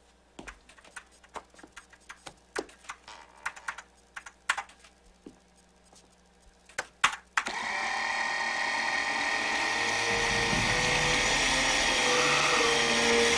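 Scattered small clicks and taps of tools on the bench. About halfway through, an electric assembly machine starts up with a loud, steady mechanical whirring hum made of several held tones.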